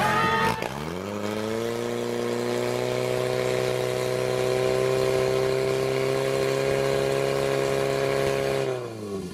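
Portable fire pump's engine revving up about half a second in and holding at steady high revs while it drives water out through the attack hoses, then dropping back near the end.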